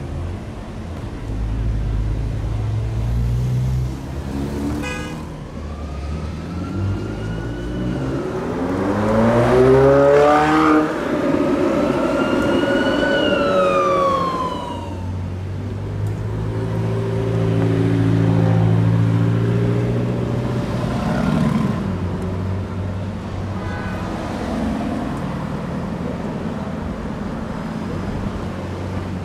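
Supercars driving off one after another, their engines running and revving; the loudest moment is an engine revving up hard about ten seconds in. Around the middle a high tone glides up and then back down over the engine noise.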